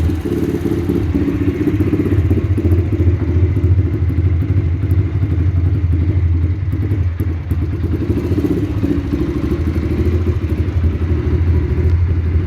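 Yamaha Factor motorcycle's single-cylinder four-stroke engine running steadily through a Roncar Aluminium RS aftermarket exhaust, with a brief dip in level about seven seconds in.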